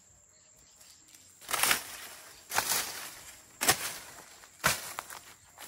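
Four crunching, rustling strokes on dry vegetation, about a second apart, each sharp at the start and trailing off briefly.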